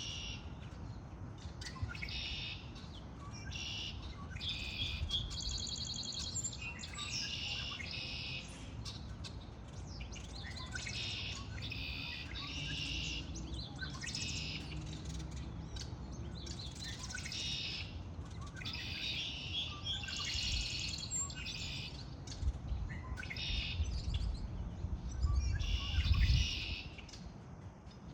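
Songbirds singing, with short bright chirping phrases repeated again and again, some of them fast trills. A low rumble runs underneath and grows louder near the end.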